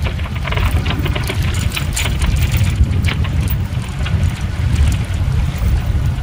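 Wind buffeting the microphone on a small sailboat underway, over the wash of choppy sea along the hull, with irregular sharp clicks and rattles from the rigging or deck gear.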